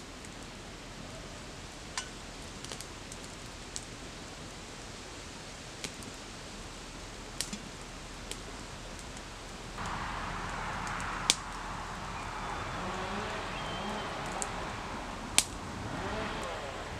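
Wood campfire crackling, with sharp pops every few seconds; about ten seconds in, a louder steady hiss of the flames comes in and holds.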